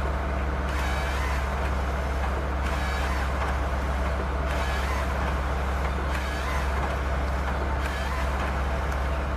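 Forestry excavator with a harvesting head, its diesel engine running steadily, with a higher hiss that swells and fades several times as the machine works.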